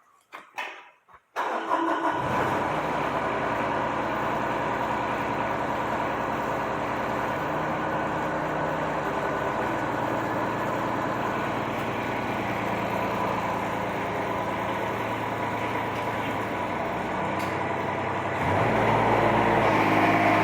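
Diesel engine of a custom-built excavator starting up about a second and a half in, then running steadily at idle; near the end it grows louder.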